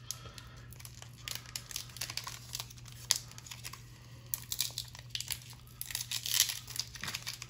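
Foil wrapper of a Pokémon booster pack crinkling and tearing in the hands as it is opened, in irregular crackles that are loudest near the end.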